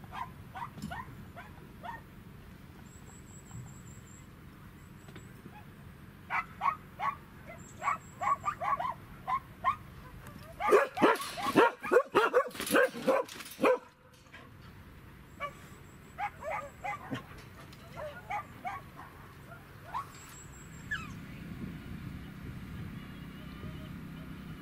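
Dogs barking in several runs of short barks. The loudest, fastest run lasts a few seconds about halfway through.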